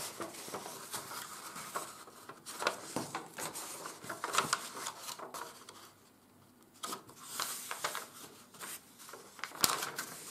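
A sheet of 80 g/m² office paper rustling and crackling as it is folded over and pressed flat by hand, with scattered sharp clicks and a brief lull about six seconds in.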